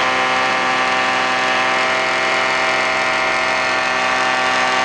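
Titan Tornado II ultralight's engine running steadily at a constant pitch in flight.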